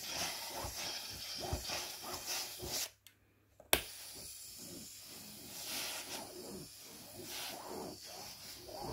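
Handheld pressurized steam cleaner with a cloth-covered fabric tool, hissing in spurts of steam as the pad is rubbed back and forth over sofa upholstery. About three seconds in the sound drops out for under a second and ends in a single sharp click, the loudest moment.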